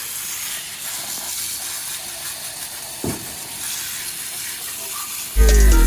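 Steady hiss of water spraying from a garden hose, rinsing degreaser off a motorcycle. Loud electronic music with heavy bass cuts in near the end.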